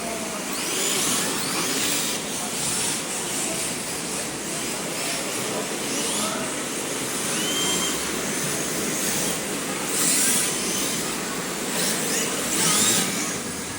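Electric RC drift cars sliding around a track: the hard drift tyres hiss on the surface while the motors whine up and down in pitch, with louder passes about ten and thirteen seconds in.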